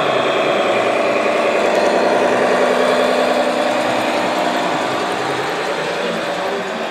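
Radio-controlled Mercedes-Benz SK model truck driving with its trailer, giving a steady engine-like drone with a fast even pulse. It eases off slightly in the second half as the truck pulls away.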